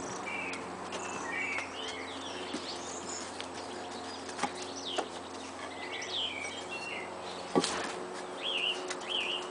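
Birds chirping in short, quick high calls, scattered throughout and coming in a run of repeated notes near the end, over a steady low hum. A few sharp taps cut through, the loudest about seven and a half seconds in.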